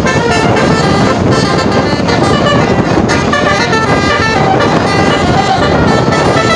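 Bus telolet 'basuri' musical horn playing a tune: a quick run of short horn notes stepping up and down in pitch, over a steady noisy rumble.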